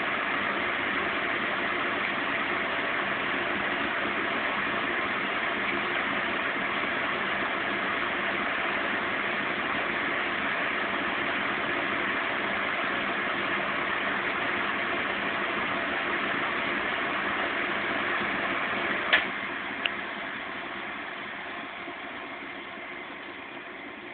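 Zanussi Z 630 INOX washing machine in its final spin at 550 rpm, running steadily. About three-quarters of the way in there is a sharp click, then a fainter one, and the sound dies away gradually as the spin comes to an end.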